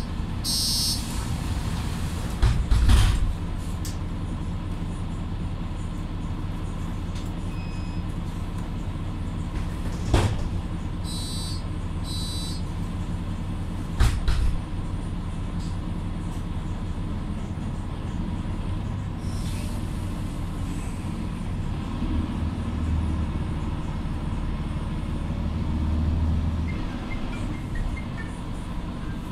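Interior of a Mercedes-Benz Conecto LF city bus: a steady low diesel engine drone. Sharp knocks and rattles come about three, ten and fourteen seconds in, and the engine note swells near the end as the bus gets under way.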